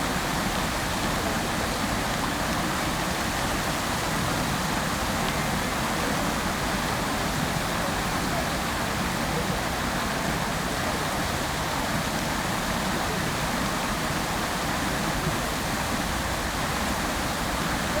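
Fountain water splashing steadily, a constant even rush with no breaks.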